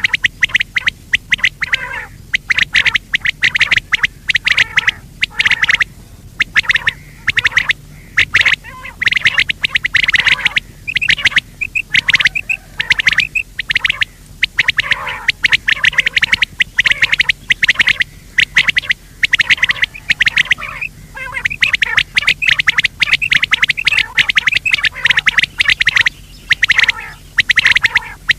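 Quail calling: a rapid, dense run of high chirping calls in bursts of a second or two with short breaks between them. It is a recorded quail call of the kind played as a lure for netting quail.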